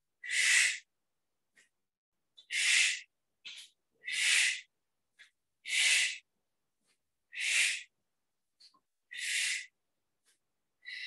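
A woman breathing out hard and audibly in a steady rhythm, about one forceful exhale every second and a half, timed to each repetition of a Pilates hand-and-foot slide.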